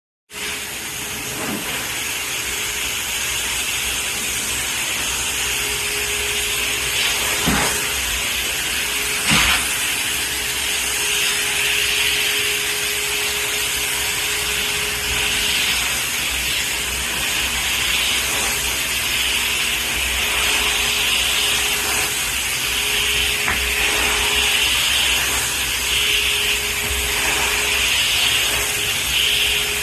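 Carpet-cleaning extraction wand drawn across a heavily soiled carpet: a steady vacuum rush and motor hum, with a hiss that swells on each stroke about every second and a half. A few sharp knocks come in the first ten seconds.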